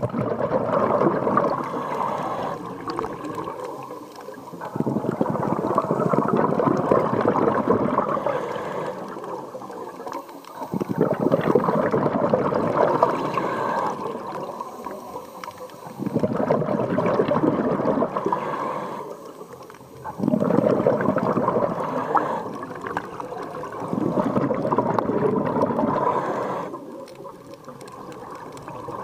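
Scuba diver's regulator breathing underwater: bubbles bubble out on each exhale in about six long swells, one every four to five seconds, with quieter inhales between.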